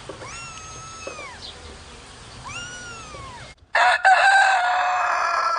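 A rooster crows once, loud and long, after a short break. Before it come two softer, drawn-out high calls that rise and fall, each about a second long, from a young bird or other small animal.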